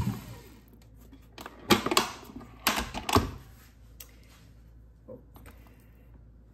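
Kenwood stand mixer's motor winding down to a stop, its whine falling away, followed about a second and a half later by a quick cluster of sharp clicks and knocks and a couple of fainter ones.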